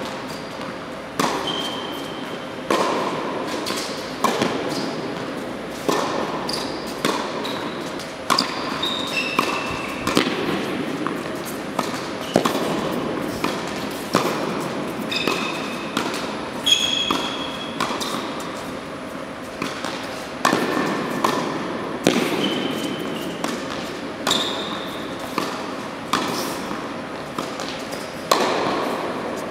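Tennis balls struck by racquets and bouncing on an indoor hard court, a sharp hit every one to two seconds, each echoing in the hall, with short high shoe squeaks on the court surface between shots.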